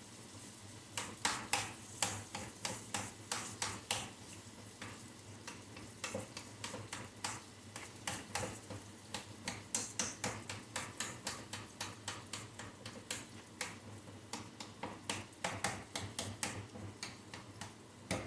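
Ground beef cooking in a frying pan while it is stirred and broken up: irregular scrapes and taps of the utensil against the pan, a few each second, over a faint sizzle.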